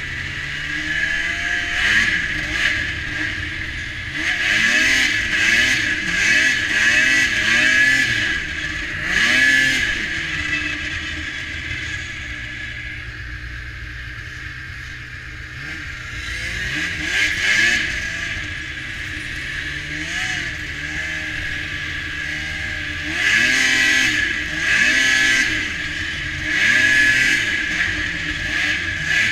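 Polaris Pro X 600 snowmobile's two-stroke twin engine revving up and down in repeated bursts while riding through snow drifts, under a steady high hiss. It eases off to a lower, quieter drone about halfway through, then picks up and revs in bursts again near the end.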